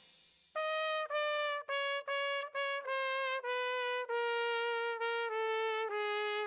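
A solo trumpet playing a slow melody of held notes that steps gradually downward in pitch, with brief breaks between notes. It comes in about half a second in, after the previous music has faded out.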